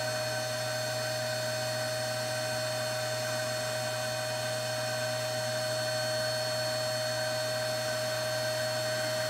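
Vacuum cleaner running steadily with a constant whine, its hose nozzle sucking loose static grass off model scenery.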